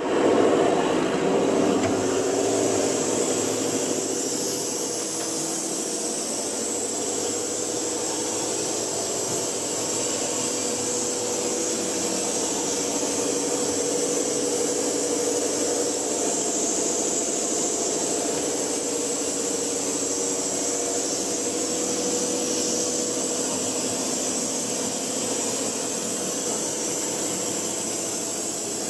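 Spray-foam insulation equipment running: a steady machine hum under a strong hiss of air.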